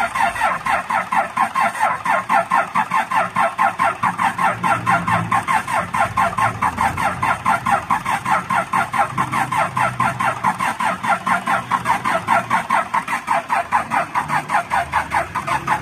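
Starter motor cranking a Cummins 6BT six-cylinder diesel, a fast even chugging that goes on without the engine catching. The mechanic blames a faulty feed pump that lets the injection pump run dry of diesel.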